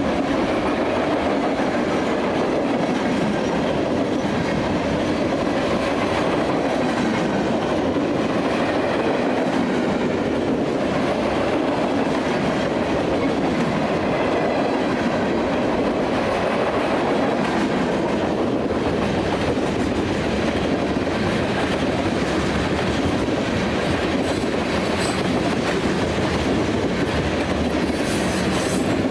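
Union Pacific freight train cars rolling past at close range: a steady rumble and clatter of steel wheels on the rails.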